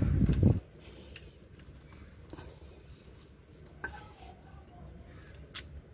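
A short low rumble of handling in the first half-second, then a few sparse metal clicks and taps as a loosened engine stud with a stud puller on it is turned out by hand and lifted off.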